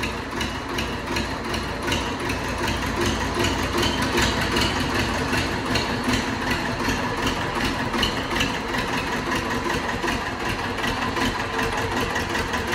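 TAFE 25 DI tractor's two-cylinder diesel engine running steadily as the tractor moves off slowly, with an even firing beat throughout.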